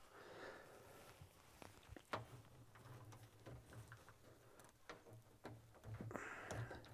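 Near silence with faint scattered clicks and light rustling: a flexible LED strip being handled and pressed onto an aluminium profile frame. A faint low hum comes and goes beneath it.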